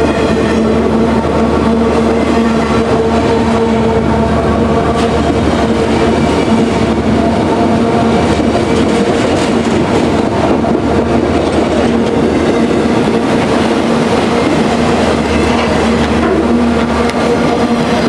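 Freight train of autorack cars rolling past at close range: a loud, steady rumble of steel wheels on rail with a steady hum running under it.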